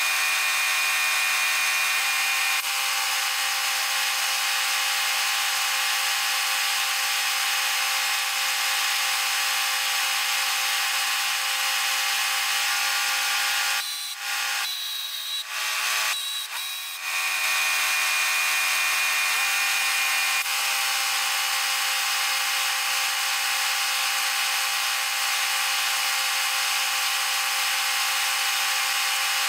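Air die grinder running with a steady high whine, grinding steel inside a skidder grapple's cylinder eyelet. It stops briefly a few times about halfway through, and its tone shifts now and then as it bites into the metal.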